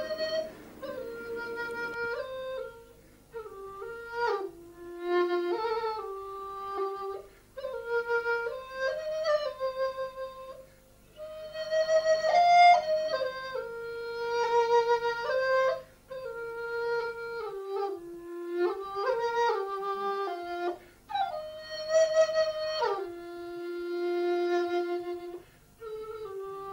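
Background music: a flute playing a melody, one note at a time, in short phrases with brief pauses between them.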